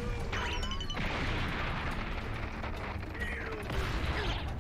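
Anime battle sound effects: a steady, heavy rumbling like explosions and fire, with a few sweeping sounds near the start.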